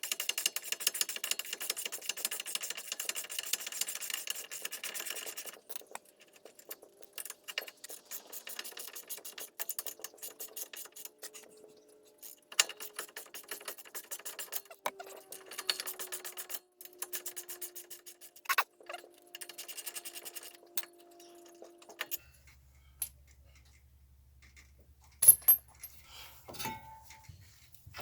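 Runs of fast, even clicking from a ratchet wrench being worked on the brake assembly, in stretches with pauses between. About two-thirds of the way through the clicking stops and a low hum comes in, with a few sharp clicks.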